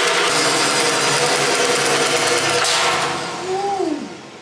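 Heavy-duty handheld drill with a spring-ejector annular cutter boring through 3/8-inch steel plate, running steadily under load. About two and a half seconds in the cut ends and the trigger is released; the motor winds down with a falling whine.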